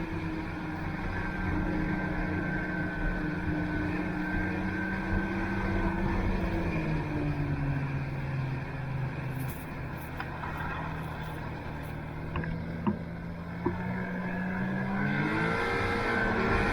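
Snowmobile engine running under way; its pitch drops about halfway through as it slows, holds lower, then climbs again near the end as it speeds up.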